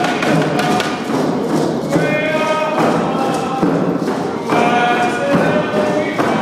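Steady drumbeat with a group of voices singing a Northwest Coast wolf dance song in long held notes, the singing pausing and starting again every second or so.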